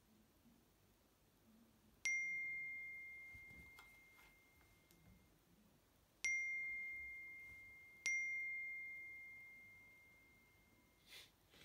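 Phone text-message notification chime, a single bell-like ding that rings out, sounding three times as three messages arrive, the last two close together.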